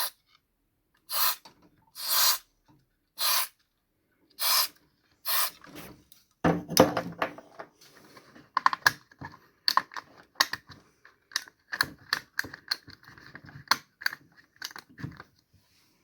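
Six short hisses from an aerosol can of contact cleaner, about a second apart, then a long run of sharp plastic and metal clicks and clatter as parts of the television set are handled.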